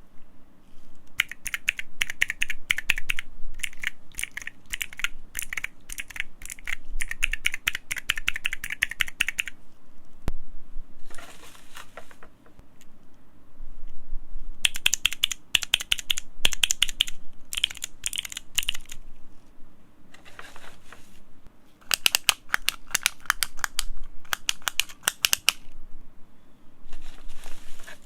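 Mechanical key switches on a fidget-toy keyboard being pressed rapidly, making fast crisp clicking in three long bursts, with softer handling rustles in the pauses between.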